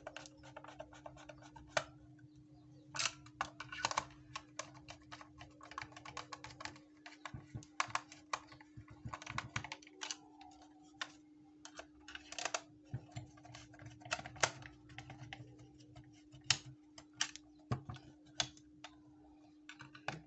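Irregular plastic clicks, taps and rattles as a portable radio's plastic case is handled, turned over and closed up, over a steady hum.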